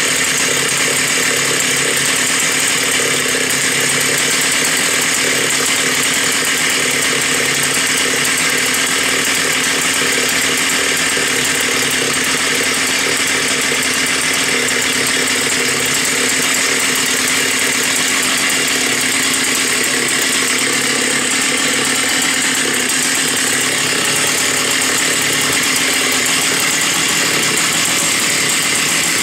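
Stihl 084 Magnum two-stroke chainsaw running steadily at a constant engine speed.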